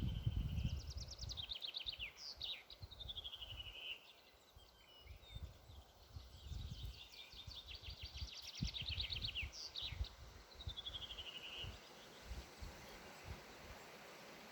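A songbird singing two song phrases of rapid trills and falling note series, the first at the start and the second from about six seconds in, over low irregular rumbling and thumps from wind or handling on the microphone.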